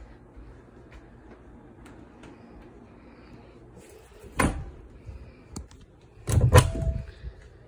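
Closet door being opened and shut: a sharp knock about four seconds in, then a louder clatter lasting about half a second near the end.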